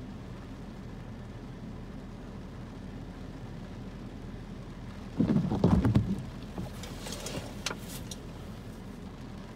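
Car windshield wiper sweeping once across the rain-wet glass about five seconds in, a loud sweep lasting about a second, followed by a few sharp ticks. A steady low hum from the car runs underneath.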